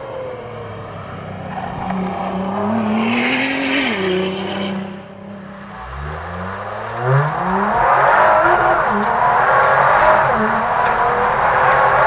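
Nissan R35 GT-R's twin-turbo V6 at race pace. It is first heard passing from the roadside, with a brief loud hiss in the middle of the pass. Then, from inside the car, it accelerates hard, the engine note climbing in pitch, dropping back and climbing again through the gears.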